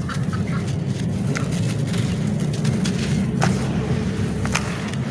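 Dry grey clay powder crumbling and pouring from hands into a tub, with a few faint gritty ticks of falling crumbs, over a steady low rumble.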